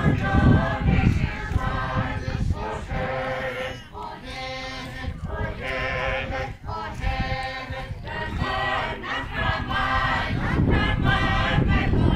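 A group of voices singing together, a chant-like folk song for a traditional dance. Low wind rumble on the microphone at the start and again toward the end.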